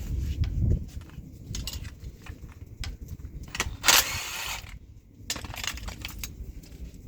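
Scattered metal clicks and clinks of hand tools and parts being handled on an engine, with a louder rasping noise lasting under a second about four seconds in.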